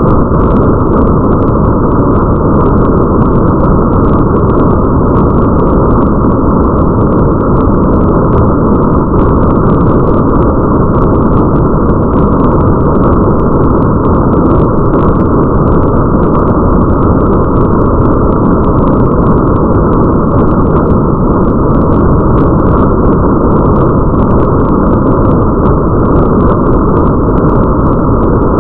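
Steady, muffled rain ambience: a dense, unchanging wash of rain noise with a deep rumble under it and faint scattered drop ticks on top.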